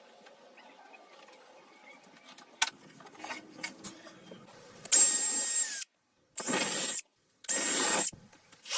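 A few faint clicks and light handling noises, then a power tool running in three short bursts of about a second each. Each burst starts and stops abruptly.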